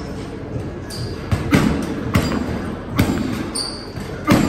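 Gloved punches landing on a heavy bag: about six hard thuds at an uneven pace, two in quick succession about a second and a half in.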